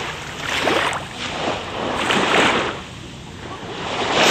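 Small waves washing in on a beach, the surf noise swelling and falling away roughly every second and a half.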